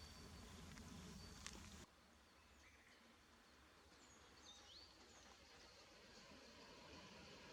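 Near silence: faint outdoor ambience with a few soft, high bird chirps, and a single click about a second and a half in. The low background hum drops away abruptly about two seconds in.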